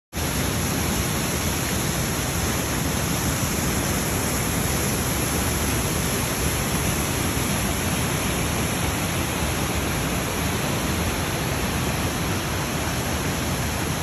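Water cascading down the Triberg Waterfalls, a steady, even rush of falling water.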